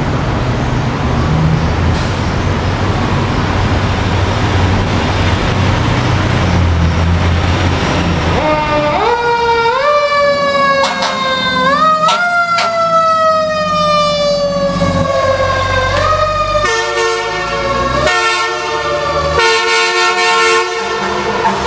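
Fire apparatus responding on a city street. A low traffic rumble at first gives way, about eight seconds in, to a siren that climbs quickly in pitch and slowly winds back down, again and again. Near the end come several long, steady blasts of an air horn.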